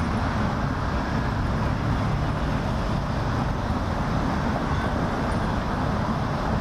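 Steady city traffic noise, a continuous low rumble without distinct events.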